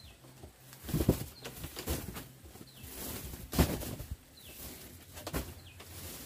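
A few dull knocks and thumps, the loudest about three and a half seconds in, with short high chirps now and then from a small bird.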